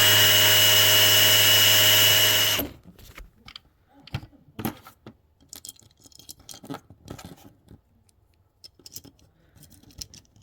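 A power drill running steadily at speed, then stopping about two and a half seconds in. Scattered light clicks and taps follow.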